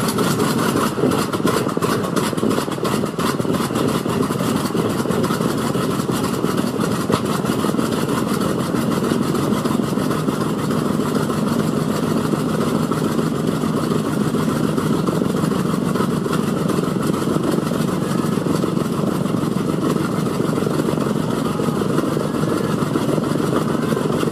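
B-25 Mitchell bomber's Wright R-2600 fourteen-cylinder radial engine, just caught on startup, running at a steady idle with a rapid crackle of exhaust pops.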